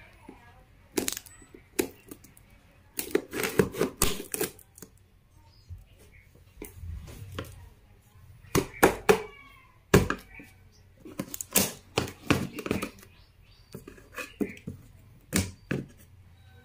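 Packing tape and plastic wrap on a cardboard parcel crackling, snapping and scraping as hands pick and cut it open: irregular clusters of sharp clicks and crinkles.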